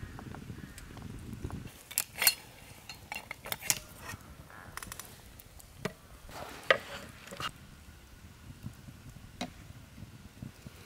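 Metal tongs clinking and knocking against a steel fire pit and its burning charcoal, several separate sharp clicks, over a crackling wood fire. A low rumble at the start.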